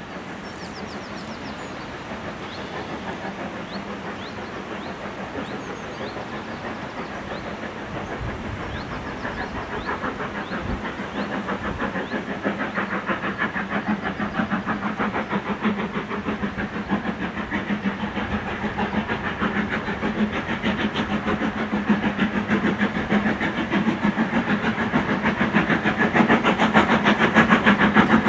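LMS 4F 0-6-0 steam locomotive No. 43924 working a passenger train hard, its exhaust beats chuffing in a rapid, even rhythm. The chuffing grows steadily louder as the engine approaches.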